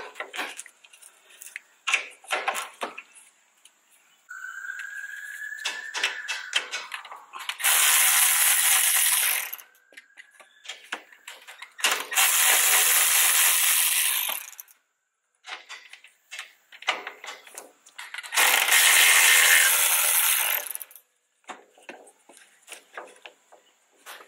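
A cordless power tool running in three bursts of two to three seconds each, driving the strut's top-mount nuts. Metallic clicks and clinks of parts and tools being handled come before the bursts.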